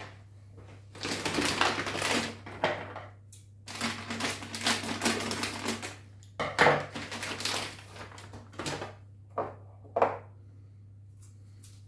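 Hands rustling a clear plastic bag and handling plastic RO housing parts and fittings on a table: bursts of crinkly rustle, then several sharp plastic knocks in the second half. A steady low hum runs underneath.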